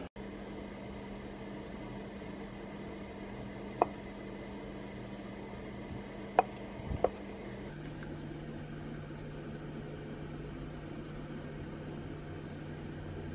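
Steady low machine hum of room ventilation, with three short sharp clicks about four, six and a half and seven seconds in; the hum shifts to a lower pitch about eight seconds in.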